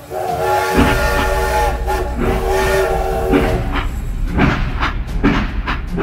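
Train horn sounding two long, steady blasts over a low rumble, followed by the regular clickety-clack of train wheels rolling on rail joints.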